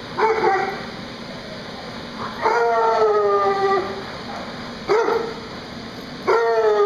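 A dog making four loud pitched calls, two short and two drawn out for more than a second, each sliding slightly down in pitch. The steady hum of a floor blower fan runs underneath.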